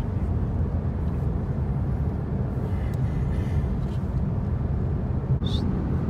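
Steady low road and engine rumble heard inside the cabin of a moving car, with a brief high chirp a little before the end.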